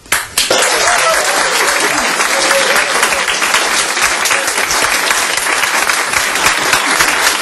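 Audience applauding, breaking out abruptly as the unaccompanied song ends and going on steadily, with some voices among the clapping.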